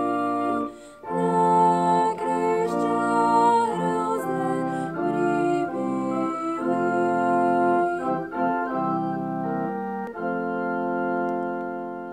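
Organ playing a slow series of held chords, ending on a long final chord that begins to die away near the end.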